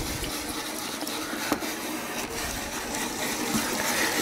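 Brass wire brush scrubbing rust off a model steam engine base submerged in a vinegar bath: steady scratchy scrubbing with liquid sloshing in the metal tray.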